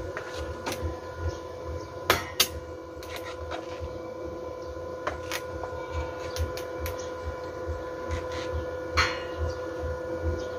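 Scattered metal clanks and clicks as steel pipe, rebar and tools are handled on a workbench, over a steady electrical hum. The sharpest knocks come about two seconds in and again near nine seconds.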